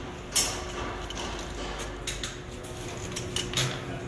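Sharp metallic clicks and clinks of a torque wrench on wheel lug nuts as they are tightened to specification, the loudest click about a third of a second in and a few more later.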